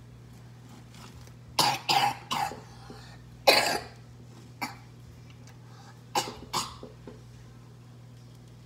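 A young girl coughing in short bursts: a quick run of three coughs, a longer harder one, a single cough, then two more, over a steady low hum.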